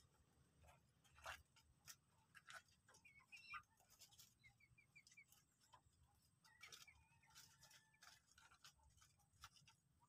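Near silence with faint scattered ticks and taps and a few soft, quick high chirps in short runs, about three to four seconds in and again near seven seconds, from common moorhens and white-breasted waterhens pecking and moving about in their pen.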